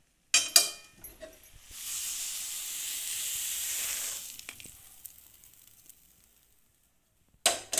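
Ringing metal clanks of a pan and spatula against a stainless steel plate, then a steady hiss lasting about two and a half seconds as the hot, thickened amla-and-sugar mixture is scraped out onto the ghee-greased plate. The hiss fades into soft scraping, and another metal clank comes near the end.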